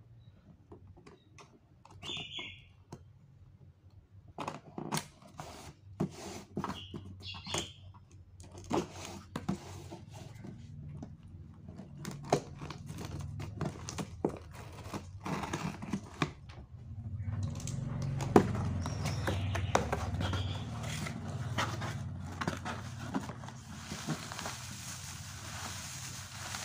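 Utility knife scraping and cutting through packing tape on a cardboard box, with scattered clicks and scratches. Later, the box is opened and shredded paper filler rustles steadily as hands dig through it.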